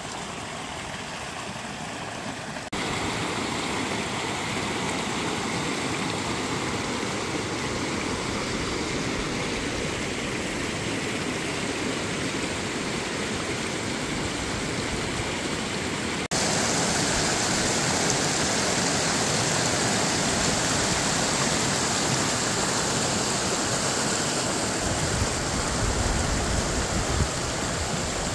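Mountain creek rushing over rocks, a steady broad rush of water. It grows abruptly louder twice, about three seconds in and about halfway. Some low rumbling comes in near the end.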